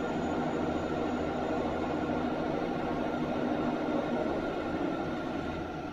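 Universal testing machine running a load test on a barbell bar: a steady mechanical hum from its drive, with faint steady tones, easing slightly near the end.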